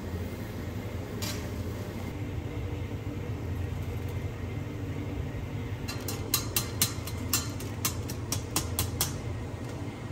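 Steady low kitchen hum with sharp metallic taps as cooked rice is spooned into a large steel steamer pot with a perforated tray: one tap about a second in, then a quick run of about a dozen between six and nine seconds.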